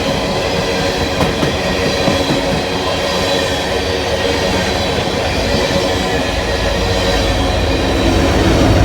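Empty steel coal hopper cars rolling past on the rails, with the clickety-clack of wheels over rail joints and steady wheel squeal. A deeper rumble builds over the last couple of seconds.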